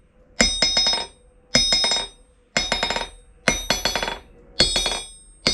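A hammer bounced on the face of a 66 lb cast-steel London pattern anvil about once a second, five times, each strike rebounding in a few quick ringing hits. The anvil is being tested across its face for even rebound, to feel for casting voids.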